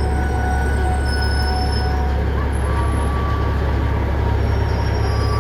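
Steady low hum of a large vehicle's engine running, with thin high squealing tones rising and fading over it.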